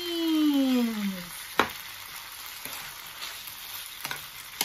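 Chopped bitter melon and onion sizzling steadily as they sauté in a frying pan, with a spoon stirring them. There is a sharp knock about a second and a half in and a couple of lighter knocks near the end.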